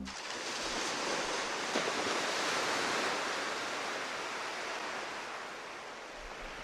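Ocean surf washing in a steady, even rush that swells over the first few seconds and then slowly fades.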